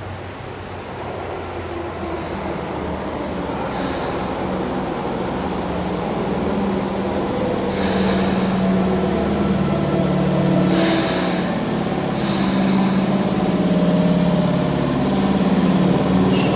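Tokyu 8500 series electric train arriving, growing louder as it pulls in, with a few brief clanks. A low steady hum joins in about six seconds in: the 'poo' sound this set gives off as it stops, which the uploader suspects is an abnormal noise.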